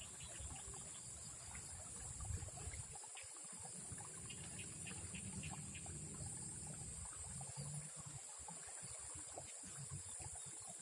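Faint river ambience: water trickling and flowing, with a steady high-pitched insect drone over it.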